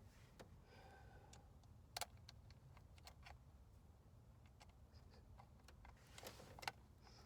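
Quiet, scattered small clicks and taps of parts and hand tools being handled, with two sharper knocks, one about two seconds in and one near the end.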